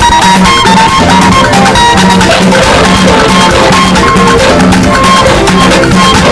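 Live church praise band playing an upbeat dance groove, with drum kit, percussion and a pulsing bass line.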